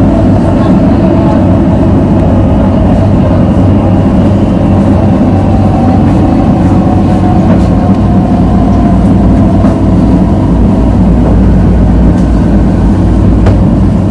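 MTR South Island Line S-Train running at speed through a tunnel: steady, loud running noise of wheels on rail, unbroken throughout.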